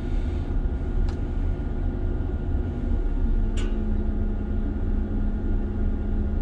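Mobile crane's engine running steadily, heard from inside the operator's cab while the crane is worked. A steady hum joins about three seconds in, and there are two short clicks.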